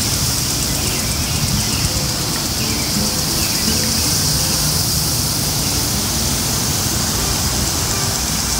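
Lawn sprinklers spraying: a steady, even hiss, over a steady low rumble, with a few faint bird chirps.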